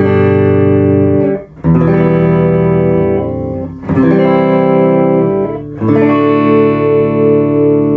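Epiphone Les Paul electric guitar with neck and bridge pickups selected together, through a clean amp: strummed chords, a new one about every two seconds, each left to ring, the last held with a slight wavering.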